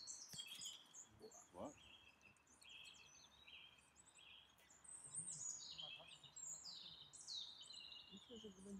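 Several songbirds singing faintly. Their phrases overlap, with falling high whistled sweeps and runs of short repeated notes.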